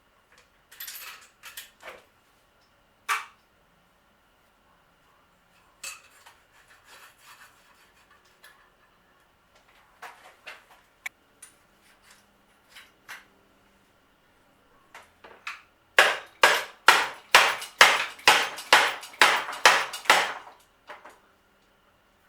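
Hand tools working on bicycle parts during a teardown: scattered metal clicks and knocks, then a quick run of about a dozen loud strokes near the end.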